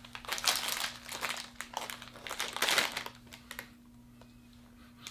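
A Maltesers snack packet crinkling as it is handled and opened, in a run of irregular crackles that stops a little over two-thirds of the way through. A faint steady hum sits underneath.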